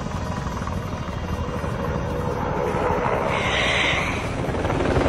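Helicopter rotor chopping steadily and growing louder as it comes closer, with a short higher hiss about three and a half seconds in.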